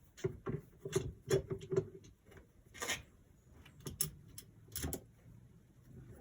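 Clamp and tool being handled on a wooden work surface: a quick run of about half a dozen clicks and knocks, then three more single knocks spaced about a second apart.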